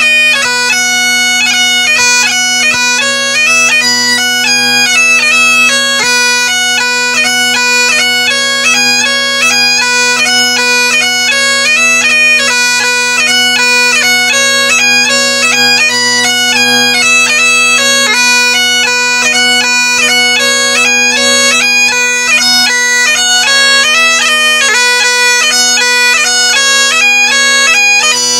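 Great Highland bagpipe playing a lively traditional Scottish tune: the chanter's quick melody runs over the steady, unbroken hum of the drones.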